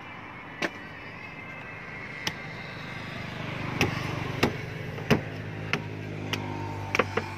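A machete chopping into a palmyra (sugar palm) fruit on a wooden table: about nine sharp chops at uneven intervals, coming faster in the second half, as the tough husk is hacked open.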